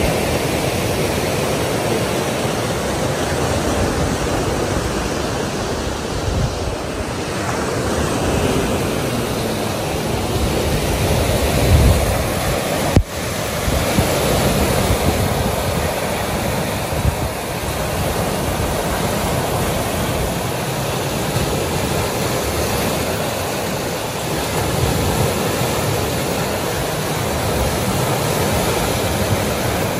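Choppy, wind-driven lake waves breaking and washing onto a pebble and rock shore in a steady surf, with wind buffeting the microphone in low gusts. There is a brief sharp break about halfway through.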